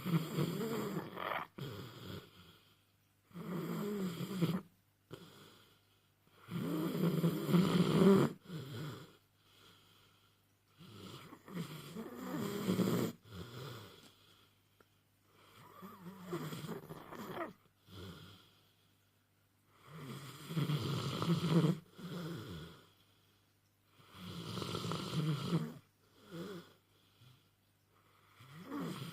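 A sleeping dog snoring in slow, regular breaths, one snore about every four seconds.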